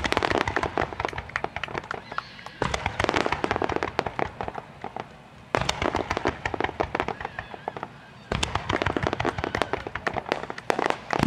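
Fireworks going off in four dense volleys of rapid pops. Each volley starts abruptly, about every three seconds.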